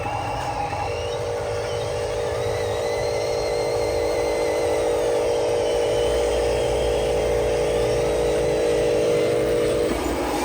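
Radio-controlled model trucks running, a steady hum with a fainter, higher whine that rises and falls in pitch as the motors change speed.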